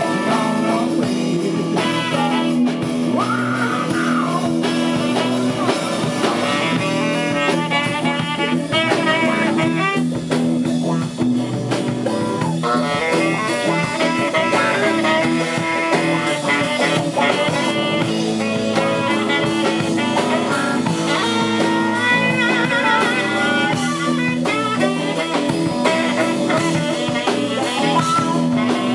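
Live blues band playing an instrumental passage: electric guitars and drum kit, with a saxophone playing the lead melody.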